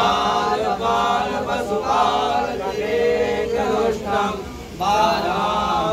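Several voices chanting a Hindu devotional song together in long, held phrases, with a short break about two-thirds of the way through.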